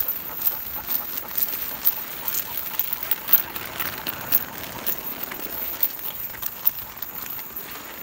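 Irregular light clicks and scuffs of a person and a harnessed dog walking on a concrete sidewalk.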